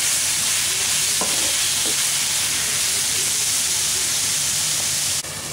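Chopped onion, tomato and spice powders sizzling in oil in a frying pan while being stirred. The sizzle cuts off abruptly near the end.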